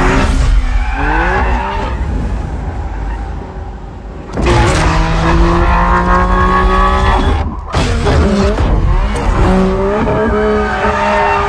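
BMW M4 running hard at high revs with its tyres squealing, held steady for stretches and sliding in pitch. It falls back for a couple of seconds, surges again sharply about four seconds in, and cuts off briefly near the middle.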